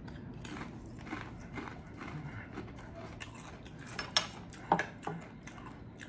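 Faint eating sounds: chewing with scattered light clicks, and two sharper clicks a little after four seconds and just before five seconds.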